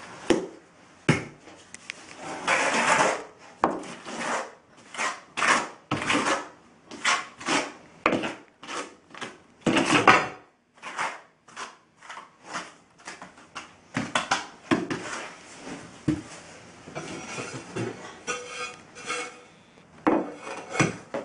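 Square-notched steel trowel scraping and spreading thinset mortar over a floor: a long run of short, irregular scraping strokes, about two a second.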